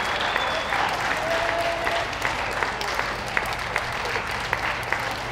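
Audience applauding while the dogs are gaited round the ring. About halfway through, sharper single claps close by stand out, roughly two or three a second.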